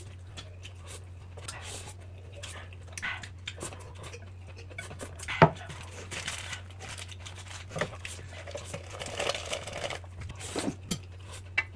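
Rustling and crinkling from handling things, with scattered small clicks and knocks and one sharp knock about five seconds in, over a steady low hum.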